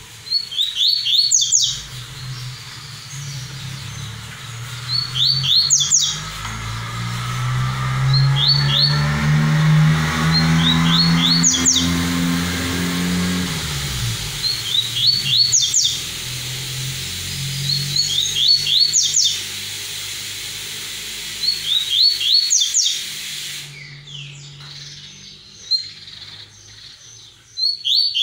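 Caged double-collared seedeater (coleiro) singing its 'tui-tui' song: short phrases of quick rising whistled notes, repeated every three to four seconds. A low engine drone swells and fades away in the background through the middle.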